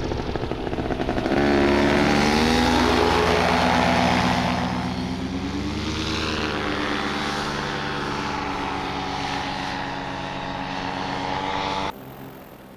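Paramotor's two-stroke engine and propeller running hard in flight, the pitch rising about a second in as the throttle opens, then easing off gradually. The sound drops away sharply near the end.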